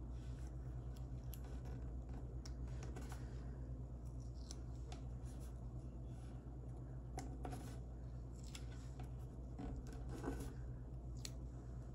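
Paper stickers being handled and pressed onto planner pages by hand: scattered small clicks and paper rustles, several a second, over a steady low hum.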